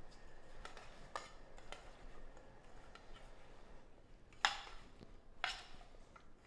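Potato cubes being tossed by hand in a stainless steel mixing bowl: faint taps and scrapes, with two sharper clinks against the metal bowl about a second apart after about four seconds.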